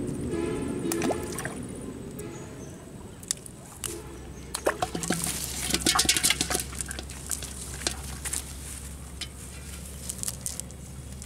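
Live freshly caught fish flapping and slapping wetly in an aluminium pot with a little water, a quick cluster of clicks and splashy crackles about halfway through, amid the rustle of a nylon cast net being picked over by hand.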